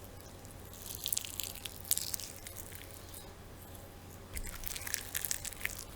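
Raw meat being kneaded by hand: wet squishing in two spells, about a second in and again after four seconds, with a quieter gap between.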